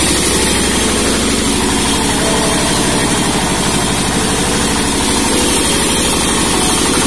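Single-cylinder diesel engine of a wheeled three-phase generator set running steadily with a rapid, even chugging, powering a wood planer whose motor and cutterhead spin along with it.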